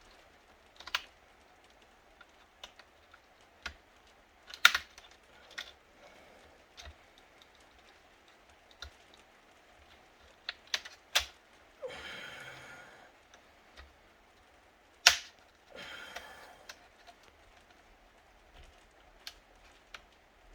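Scattered sharp plastic clicks and snaps as the clips of an HP Pavilion ze4200 laptop's plastic casing are pried apart, with a short scraping rub about twelve seconds in and another about sixteen seconds in.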